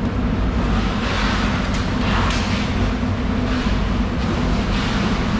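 Steady low machine drone, with a hiss that swells and fades a few times over it.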